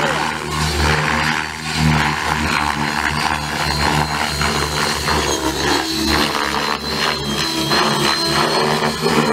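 Align T-Rex 600E electric RC helicopter in flight: a steady whine of its motor and spinning rotor blades, swelling and easing a little as it manoeuvres and climbs.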